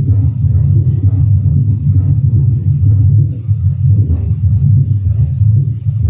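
Recorded heart sounds of mitral stenosis played over loudspeakers: a low-pitched diastolic rumble that repeats with each beat and rises just before a loud first heart sound (presystolic accentuation), after the second heart sound and opening snap.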